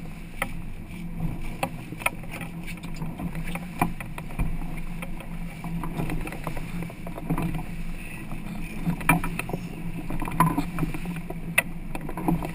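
Sportfishing boat's engine running with a steady low hum, with scattered sharp knocks and clicks on top.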